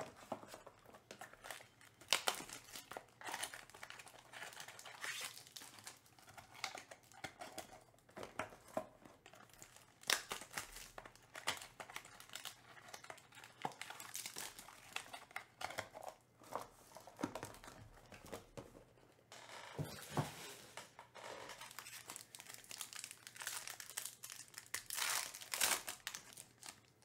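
Trading-card packaging being handled and opened: a cardboard pack sleeve slid and flexed, then a foil card pack crinkled and torn open. Irregular crinkles and sharp clicks run throughout, with the densest crinkling and tearing near the end.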